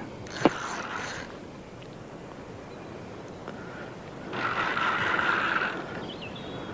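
Fishing reel whirring in two spells, the second about a second and a half long, while a hooked fish is being played, with a sharp click about half a second in.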